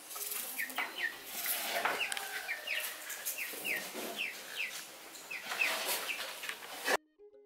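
Domestic chickens clucking, a run of short repeated calls, with a few soft knocks underneath. Quiet music cuts in abruptly right at the end.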